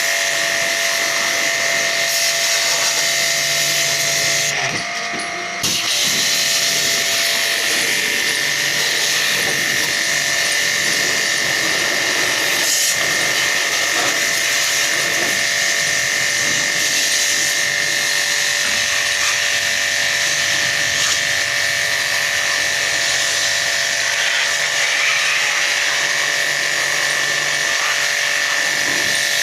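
A small electric motor running steadily with a high whine over a hiss. It cuts out for about a second about five seconds in, then runs on unchanged.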